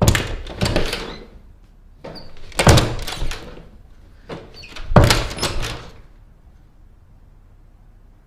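Heavy banging on a door: three loud blows about two and a half seconds apart, each ringing out briefly.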